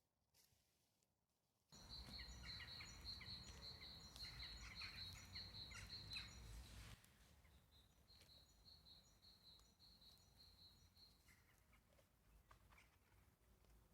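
Faint outdoor ambience with a bird singing a quick run of repeated high chirps, over a low rumble; it starts abruptly just under two seconds in, and the rumble drops away about halfway through while the chirping carries on.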